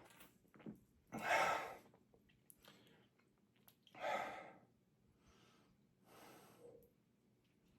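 A man breathing heavily: two loud breathy exhalations and two softer ones, each under a second, with small clicks between.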